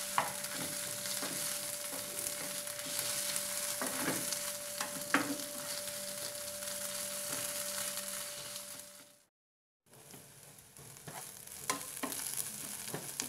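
Sliced onions with ginger-garlic paste sizzling in oil in a non-stick frying pan, stirred with a wooden spatula that scrapes against the pan now and then. The sound cuts out for about half a second around nine seconds in, then the sizzling and scraping resume.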